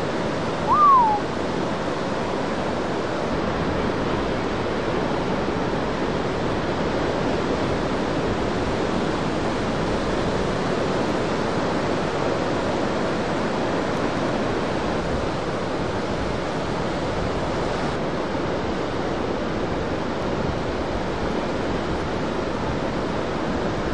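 Steady rush of large breaking ocean surf. About a second in, a brief whistle-like call rises and falls over it.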